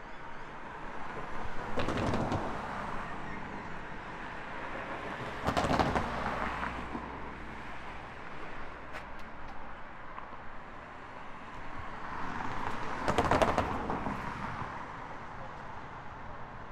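Road traffic: three vehicles pass one after another, each a swell of tyre and engine noise that rises and fades. They come about two seconds in, around six seconds in and near thirteen seconds in.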